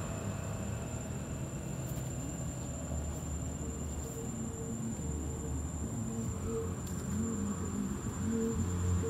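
Insects giving a steady, high-pitched drone, over a low rumble.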